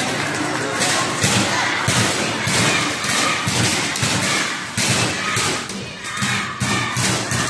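Repeated dull thumps, roughly two a second and somewhat irregular, with voices underneath.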